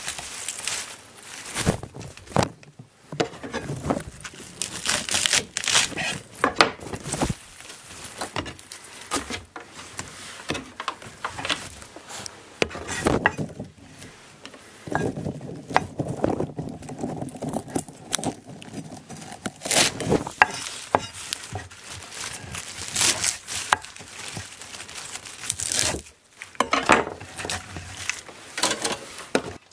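Fresh seri (Japanese parsley) stems and leaves rustling, crinkling and tearing as hands sort and pick through the bunch, with small taps and ticks against a wooden cutting board.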